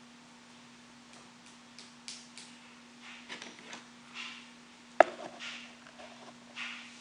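Makeup brushes and plastic makeup containers being handled: soft brush taps and swishes and small plastic ticks, with one sharp click about five seconds in. A steady low hum runs underneath.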